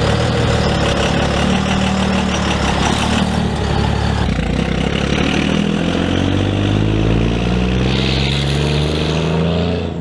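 Dodge Ram 3500 dually's Cummins turbo-diesel engine running steadily for about four seconds, then accelerating hard as the truck pulls away, its pitch climbing in several successive sweeps. It is at heavy throttle, blowing black smoke.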